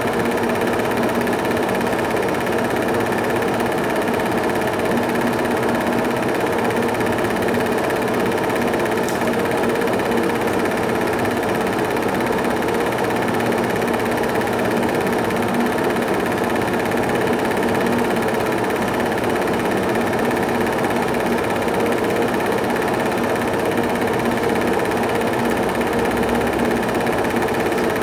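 Film projector running steadily, a constant mechanical whirr that does not change when the picture cuts.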